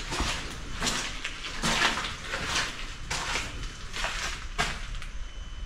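Footsteps walking slowly along a basement floor, about one step every three-quarters of a second. A faint high steady tone comes in near the end.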